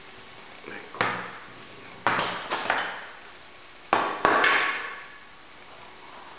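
Plastic and cardboard packaging of an action-camera box being handled on a table: sharp clattering knocks about one, two and four seconds in, each trailing off in a short scraping rustle.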